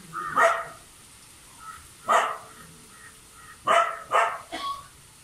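A dog barking about five times at irregular intervals, single short barks.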